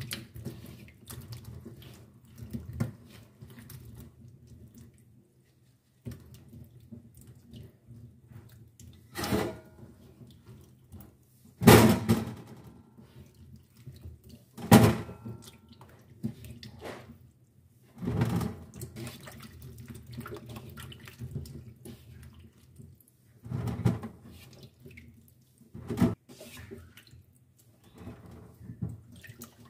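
Tap water running into a steel pot of figs in a kitchen sink, with hands sloshing and turning the figs. Several sudden louder splashes and knocks are spread through as figs are lifted and dropped back into the water.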